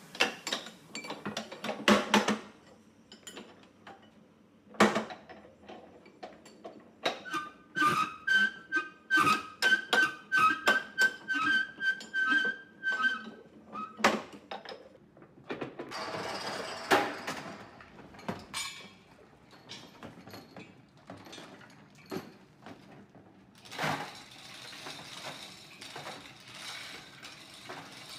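Tyre-workshop work sounds: a string of sharp metal knocks and hammer blows at uneven spacing. From about eight to thirteen seconds in comes a fast run of strikes with a ringing tone over it, and around sixteen seconds a short rasping hiss.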